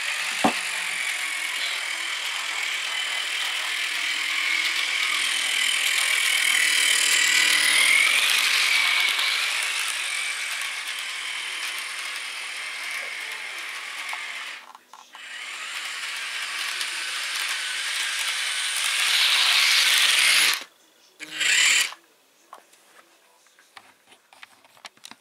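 Jouef HO-scale Picasso railcar model's electric motor and gears whining and rattling as it runs on the track, the whine rising and falling with speed. It cuts off about twenty seconds in, runs again for under a second, then a few faint clicks.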